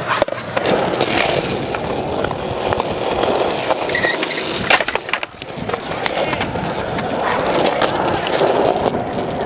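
Skateboard wheels rolling over concrete in a steady rumble, with a sharp clack of a board a little under five seconds in.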